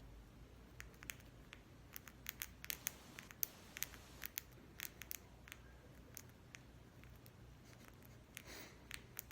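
Budgerigar pulling and biting at loose threads with its beak: irregular, sharp little snips and clicks, thickest in the middle, with a short tearing rustle near the end.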